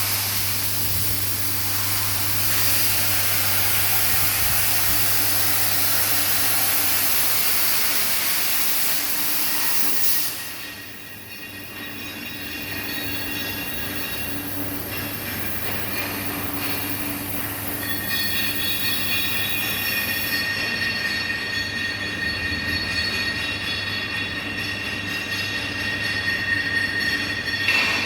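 CNC plasma torch cutting 12 mm mild steel plate. For about the first ten seconds it gives a loud hiss over a steady low hum. The hiss then drops, and from about eighteen seconds a high-pitched whine sets in and holds steady.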